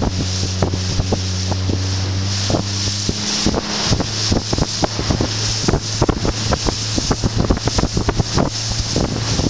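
Small fishing boat's engine running steadily underway, its note shifting slightly about three seconds in, with wind on the microphone and frequent irregular slaps of the hull on small waves.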